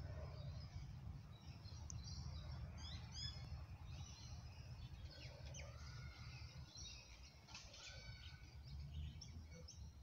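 Several birds chirping and calling in the trees: many short, high chirps and a few quick rising calls, busiest about three seconds in and again near eight seconds, over a steady low rumble.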